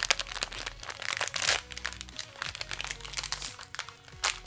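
Foil blind-bag wrapper crinkling as it is handled and opened by hand: a dense run of crackles for about a second and a half that then thins out, with one sharp crinkle near the end.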